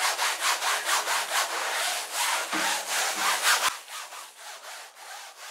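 Soapy sponge scrubbing a wet window insect screen in quick back-and-forth strokes, a rhythmic rasping hiss. A little after halfway through, the scrubbing breaks off sharply and only fainter rubbing is left.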